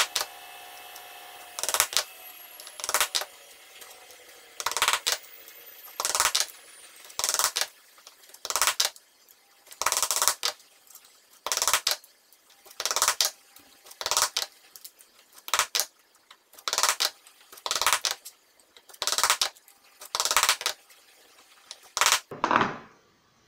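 Claw hammer tapping steel pins into the holes of a 3D-printed plastic cycloidal-drive base ring. Each pin gets a short flurry of sharp taps, repeated about every second and a half some fifteen times.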